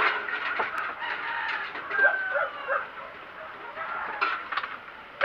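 Short animal calls, the loudest a brief falling call about two seconds in, with a few light knocks about a second in and again near the end.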